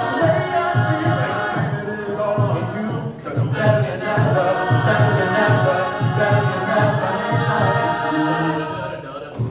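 A cappella choir singing held chords without clear words, over a low pulsing beat about twice a second. The voices break off briefly about three seconds in, come back, and fade near the end.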